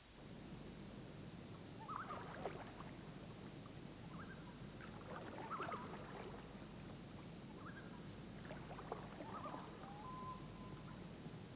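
Scattered short bird calls and chirps in a few clusters over a soft, steady background hiss, with a brief flat whistle near the end.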